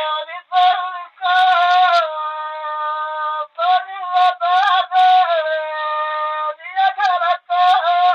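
A single high voice singing a Bagheli birha folk song: ornamented, wavering phrases, with long notes held level for a second or more and short breaks between phrases.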